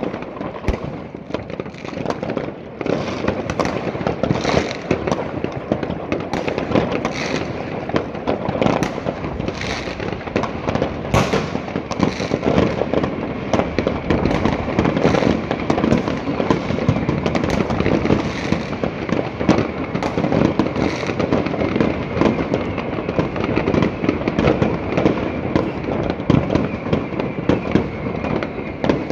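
Many fireworks and firecrackers going off across a town at once: a dense, unbroken crackle of bangs and pops.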